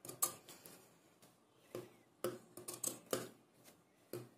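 Scissors snipping the corners of a stitched fabric piece: a series of short, crisp snips, several in quick succession in the middle and one more near the end. The corners of the seam are being clipped close to the stitching.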